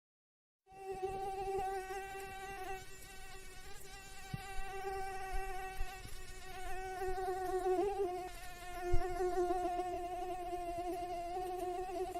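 Mosquito in flight: the steady, slightly wavering whine of its wingbeats, starting just under a second in. A short click is heard about nine seconds in.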